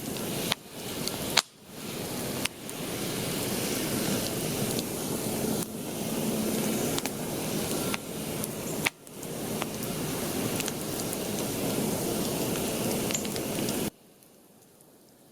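A campfire burning, a steady rush of noise with scattered sharp crackles and pops. It cuts off abruptly near the end.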